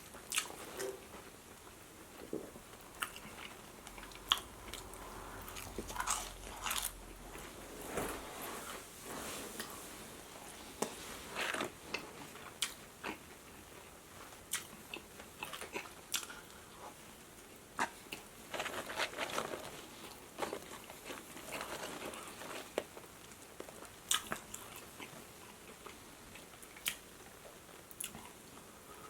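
Close-miked eating: irregular bites, crunches and chewing of Raising Cane's fried food dipped in ketchup, with short wet mouth clicks.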